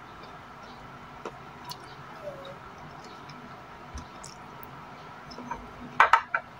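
Close-up eating sounds of someone eating boiled okra and rice by hand: soft chewing and mouth clicks, scattered and irregular, with a short run of louder clicks about six seconds in.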